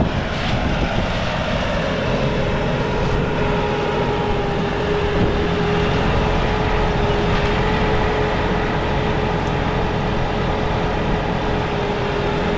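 New Holland tractor running steadily under load, a constant engine drone with a steady whine held on top.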